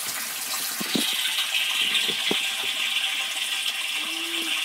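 Water from a pump's delivery pipe pouring and splashing into a water tank, a steady hiss that grows brighter about a second and a half in. The tank is nearly full, just before the float switch shuts the pump motor off.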